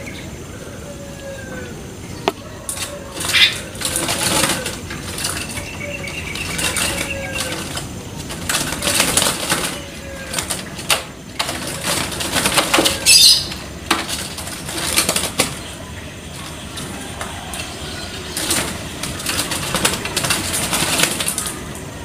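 Short falling bird calls repeat every second or so through the first half, among irregular bursts of rustling noise. There is a sharp loud crackle about 13 seconds in.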